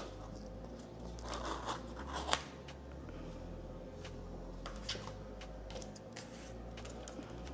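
Woven Apple Watch Trail Loop band being pulled free of its cardboard holder: paper and fabric rustle and scrape, with a sharp snap a little past two seconds in. Faint handling clicks follow as the loose band is held.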